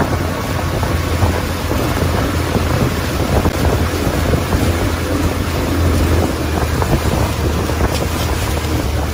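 Motorboat running steadily at speed while towing, a low engine drone under wind buffeting the microphone and the rush of the boat's wake.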